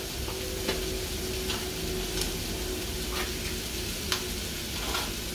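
Shredded carne seca sizzling steadily in a frying pan on the stove, with a handful of light clicks and taps of a spoon scraping cream out of a small tub.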